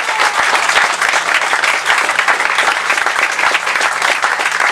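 A crowd applauding, a steady patter of many hands clapping.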